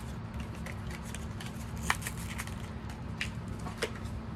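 Small handling clicks and knocks from a Kit-Cat clock's battery compartment as C cell batteries are fitted: a few sharp taps and rattles, the loudest about two seconds in, over a low steady hum.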